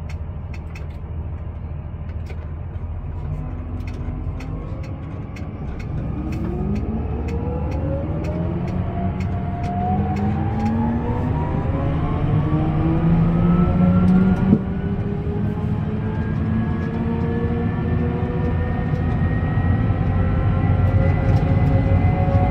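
Fendt 826 Vario tractor heard from inside the cab: the six-cylinder diesel runs with a steady low rumble while the stepless Vario driveline whines, the whine rising smoothly in pitch as the tractor gathers speed. Light regular clicking in the first few seconds and a single sharp knock about two-thirds of the way in.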